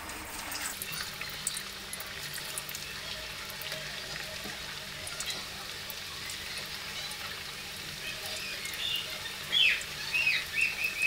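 Thin rounds of rice-flour and gram-flour dough deep-frying in hot oil in a kadai on a low flame: a steady sizzle with scattered crackles, rising to a few louder bursts of crackling near the end.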